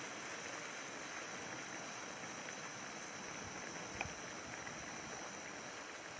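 A steady rushing hiss, with a single sharp click about four seconds in.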